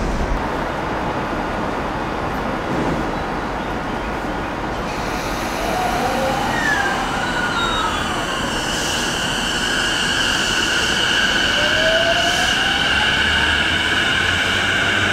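E233-6000 series electric train pulling away, its Mitsubishi IGBT-VVVF inverter whining over the running rumble. From about five seconds in, steady high tones are joined by glides whose pitch mostly rises as the train accelerates.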